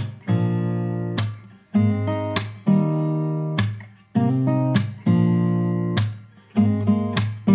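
Background music: acoustic guitar strumming chords, each struck about once a second and ringing out before the next.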